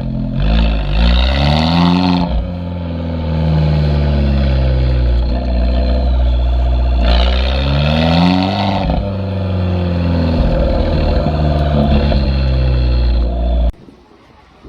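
Abarth 595's 1.4 turbo four-cylinder running through its standard Monza exhaust with a 200-cell sports cat fitted, idling and revved up twice, the pitch climbing and falling back each time. The sound cuts off abruptly near the end.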